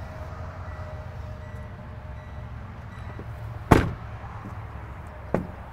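Freightliner M2 truck's front passenger door shut with one sharp slam about two-thirds of the way in, then a lighter click near the end, over a steady low rumble.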